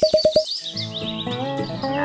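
Background music: a rapid run of identical plucked notes, about eight a second, stopping about half a second in, then a guitar-led tune, with bird chirps over the first second.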